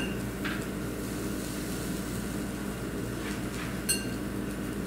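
Steady low machine hum with one light clink about four seconds in.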